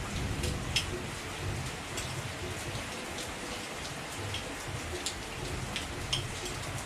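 Heavy rain falling steadily, with individual drops landing close by as scattered sharp ticks.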